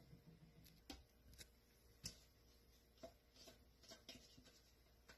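Near silence, with about half a dozen faint short taps from sauce-covered pork being handled and moved from a metal mixing bowl into a slow cooker's crock.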